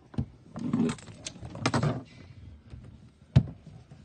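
A few sharp knocks and clicks with stretches of rustling in between, the loudest knock about three and a half seconds in.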